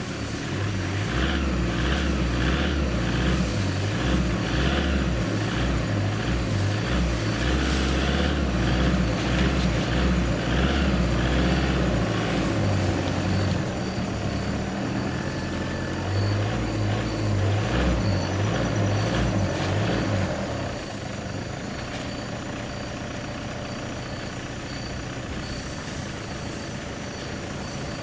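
A vehicle engine idling with a low, pulsing drone that drops away about two-thirds of the way through, leaving a quieter background.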